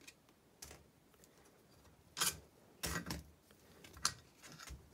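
Metal engine parts, a Fiat 126 Bis crankshaft and its connecting-rod bearing pieces, clicking and knocking as they are handled: about five short knocks, the loudest around two and three seconds in.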